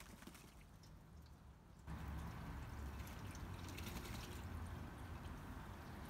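Pigeons splashing and flicking water as they bathe in a shallow tub, with light drips and trickles. A low rumble comes in about two seconds in.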